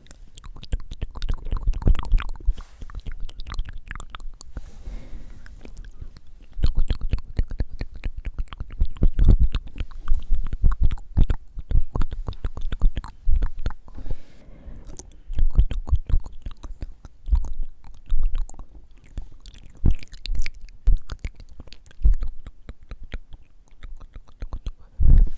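Close-mic ASMR mouth sounds: wet clicks and smacks of the tongue and lips, coming thick and irregular, with inaudible whispering. Breath blowing on the microphone adds deep thumps in clusters.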